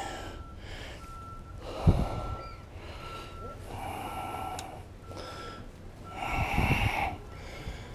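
A short, high electronic beep at one pitch, repeating steadily, with two louder breathy rushes of noise, one about two seconds in and one near the end.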